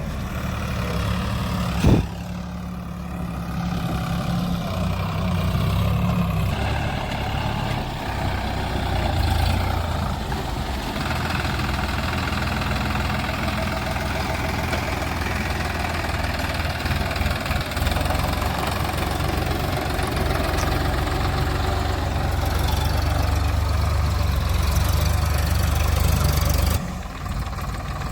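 A heavy machine's diesel engine running steadily at low speed. There is a sharp knock about two seconds in, and the sound drops abruptly near the end.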